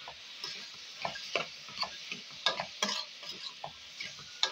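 Spoon stirring diced onions frying in oil in a stainless steel pot: irregular scrapes and taps against the metal over a steady sizzle.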